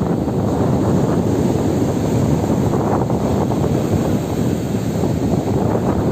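Ocean surf making a steady rush with no distinct breaks, with wind buffeting the microphone.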